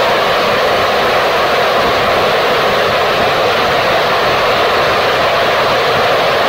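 Gilmour Space 'Phoenix' third-stage liquid rocket engine firing at a steady burn, a loud, constant rushing noise with no change in level. This is the steady-state part of a 190-second mission duty cycle test fire.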